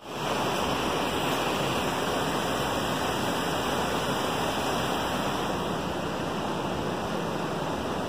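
Steady rushing of a fast, rocky mountain river together with the spouting of a hot-spring geyser, a continuous water noise with no distinct events.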